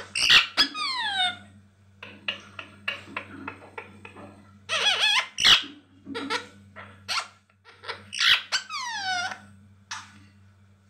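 Indian ringneck parakeet squawking and chattering: short sharp calls and clicks, with longer calls that slide down in pitch near the start and about eight seconds in.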